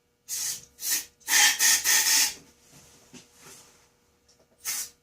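Aerosol can of starting fluid sprayed in short hissing bursts into the ATV's carburetor throat to prime the engine for starting: three bursts in the first two and a half seconds, the last about a second long, and a brief one near the end.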